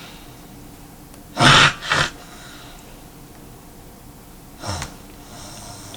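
A man snoring through a deviated septum: two loud noisy breaths close together about one and a half seconds in, and another near the end.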